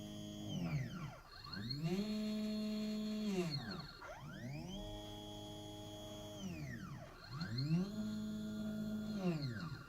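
Mini CNC machine's stepper-driven axes moving through a programmed toolpath: a pitched whine that ramps up in pitch, holds steady, then ramps back down as each move accelerates and decelerates, about three moves in a row.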